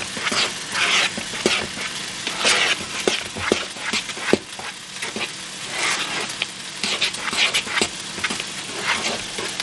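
A metal spoon stirring dry flour, salt and cream of tartar in a plastic mixing bowl: irregular scratchy swishes about twice a second, with small clicks where the spoon knocks the bowl.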